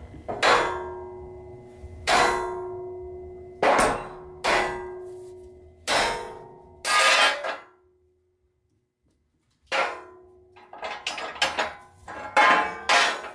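Hammer blows on the release handle of a steel jack stand loaded in a hydraulic press: about six hard strikes, each leaving a metallic ring. After a short silence comes another strike and then a run of quicker, lighter clanks. The stand's locking pin holds and does not release.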